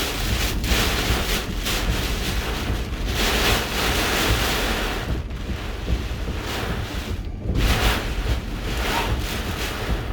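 Hurricane eyewall winds gusting hard, a dense rush of noise that swells and eases in surges, with a heavy low rumble.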